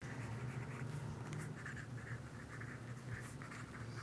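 Pen scratching on notebook paper in short, irregular strokes, over a low steady hum.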